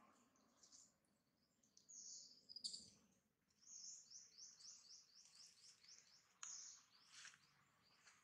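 Faint bird chirping, with a quick regular run of about ten short high chirps in the middle and a few single sharp calls near the end.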